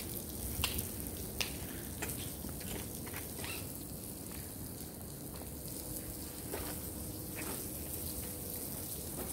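Footsteps on a paved path: a few light clicks about two-thirds of a second apart, loudest in the first two seconds, over a steady crackly hiss.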